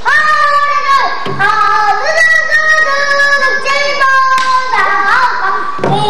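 A young girl singing pansori solo, holding long notes that slide and bend in pitch, with short breaks between phrases.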